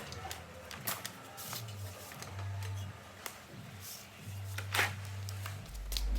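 Background music with a low bass line that changes note every second or so, over scattered sharp clicks and knocks of work being done.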